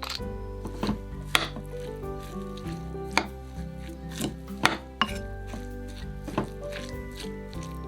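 A kitchen knife knocking on a wooden cutting board: a handful of separate, irregularly spaced chops over soft background music.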